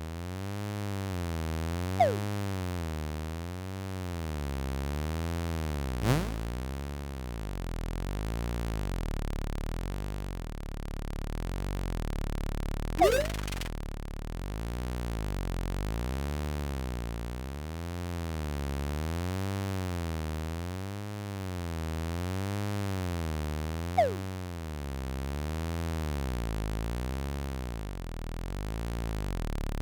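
Synthesized electronic drone, wavering slowly up and down in pitch about every two seconds. Over it come short cartoon-style pitch-glide effects: a falling blip about two seconds in, a rising sweep about six seconds in, a quick sparkly rising zip around thirteen seconds, and another falling blip about 24 seconds in.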